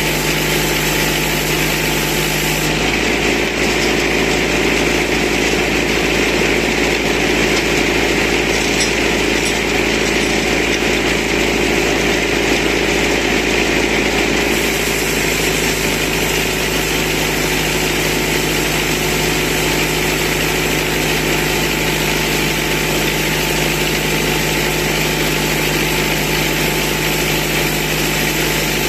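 Portable sawmill driven by a tractor, running steadily as the saw cuts through a thick log: a constant engine drone with the saw's cutting noise over it.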